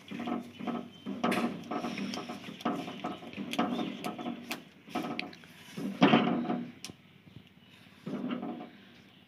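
Silicone spatula stirring thickening semolina halwa in a non-stick kadhai: rhythmic scraping, squelching strokes about twice a second, the strongest about six seconds in, then a pause with one more stroke near the end.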